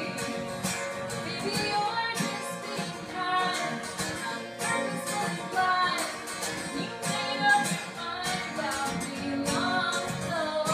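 Live folk-country song: two acoustic guitars strummed together under a woman's singing voice, with a man joining in harmony at times.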